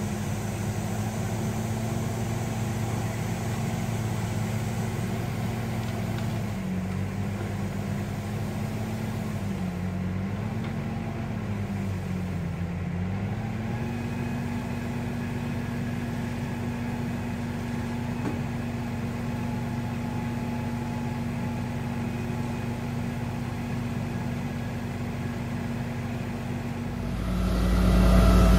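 Diesel engine of a tracked logging machine running steadily, its pitch dipping twice briefly around the middle. Near the end it becomes suddenly louder and deeper.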